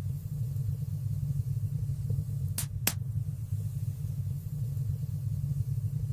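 Wood fire burning in a stone fireplace: a steady low rumble of the flames, with two sharp crackling pops close together a little under halfway through.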